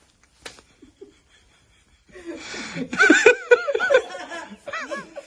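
Laughter, starting about two seconds in after a near-quiet start with a faint click: breathy chuckling that breaks into repeated laughs, loudest in the middle of the laughing.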